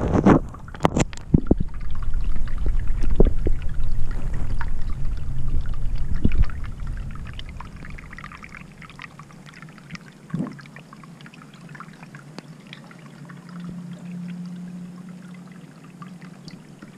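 Storm runoff trickling out of a plastic double-wall culvert pipe and over riprap rocks. A low rumble and several sharp knocks fill the first six seconds or so, then the water is quieter.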